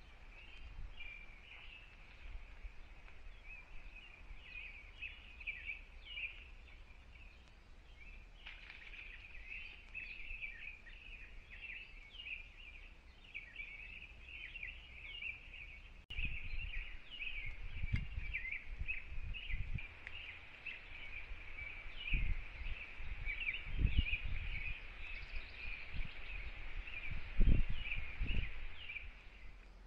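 A steady, dense chorus of quick high chirps from woodland wildlife. In the second half, irregular low rumbling thumps cut in and are the loudest sounds.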